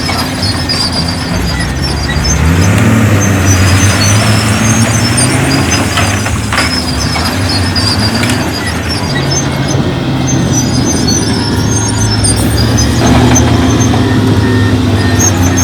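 Heavy diesel earthmoving machinery at work: a big diesel engine running under load, rising in pitch about two seconds in, with short high-pitched squeaks scattered throughout.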